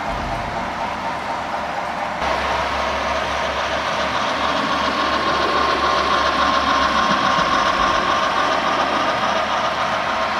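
HO scale model trains rolling along the layout's track, a steady wheel-on-rail hum, louder from about two seconds in.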